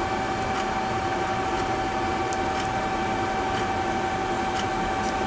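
Steady machine hum with a constant mid-pitched whine running through it, with a few faint light clicks over the top.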